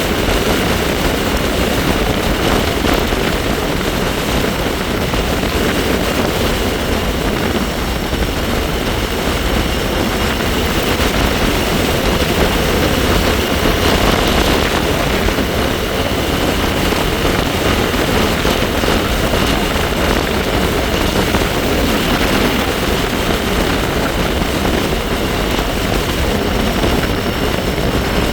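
Wind rushing over the microphone while riding a bike, with a faint steady high-pitched whine from the bike.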